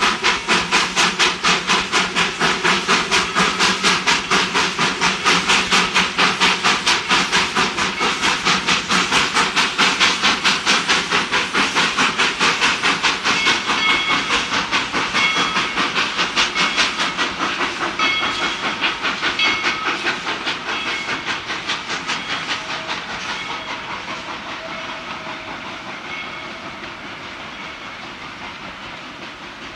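Baldwin 2-6-2 narrow-gauge steam locomotive No.12 chuffing past, with fast, even exhaust beats over a steam hiss and short high squeals in the middle stretch. The beats fade away over the last few seconds as the train moves off.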